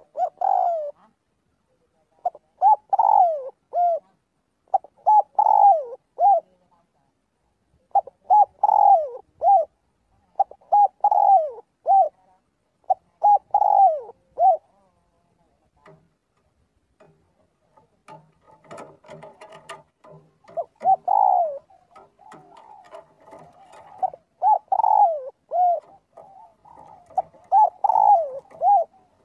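Spotted dove cooing: repeated phrases of three or four mellow, falling notes, each phrase about two seconds long with short pauses between. A faint stretch of background noise interrupts the calls a little past the middle, after which the phrases come closer together.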